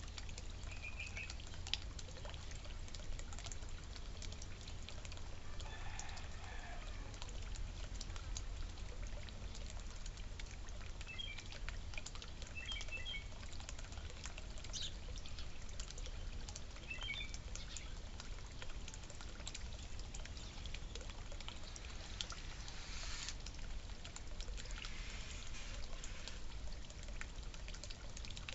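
Water fountain trickling and splashing steadily, with a few short, high bird chirps now and then and scattered light clicks.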